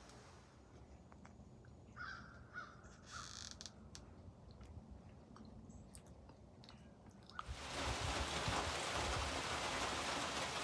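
A bird calls a few times against a quiet background, with light clicks and a brief crinkle of a plastic squeeze pouch being handled. About three-quarters of the way through, steady rain on leaf litter comes in suddenly and is the loudest sound.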